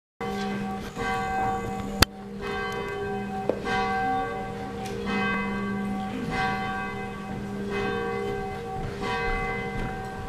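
Church bell tolling, struck again and again, each stroke ringing on into the next. A sharp click about two seconds in.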